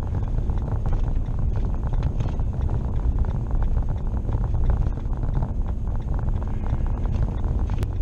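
Steady low rumble of engine and tyre noise heard from inside a vehicle's cabin while it drives uphill on a snow-covered road, with a single sharp click near the end.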